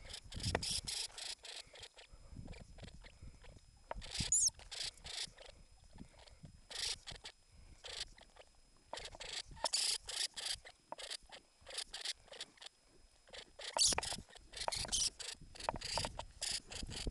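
Norway lemming giving short, shrill squeaks in quick clusters, with brief pauses between the clusters: the species' defensive threat call at an intruder.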